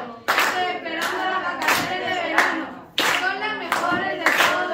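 Children clapping their hands together in a steady rhythm, about three claps every two seconds, with children's voices over the beat.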